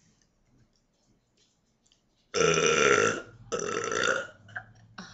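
A woman burping on purpose: two loud burps, each nearly a second long, one right after the other, starting a little over two seconds in.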